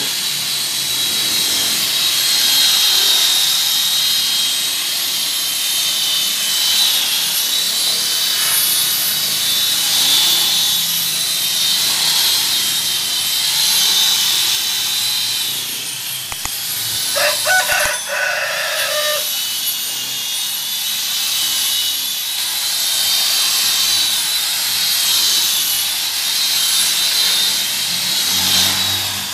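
Electric rotary car polisher running steadily with a high, slightly wavering whine as its buffing pad works the dull paint of a car door. About 17 seconds in, a rooster crows once.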